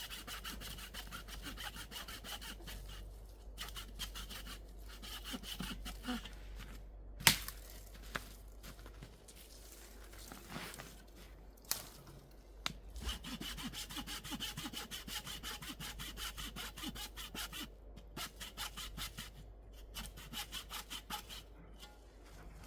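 Hand saw cutting through wood in long runs of even back-and-forth strokes, pausing now and then, with a sharp crack about seven seconds in.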